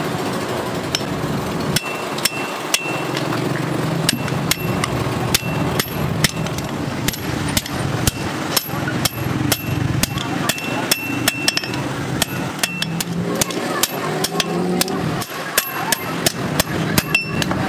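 Hand hammer striking red-hot bearing steel on an anvil, blow after blow at an uneven pace of about one to three a second, many strikes giving a short metallic ring. The curved bearing race is being straightened and drawn out into a knife blade.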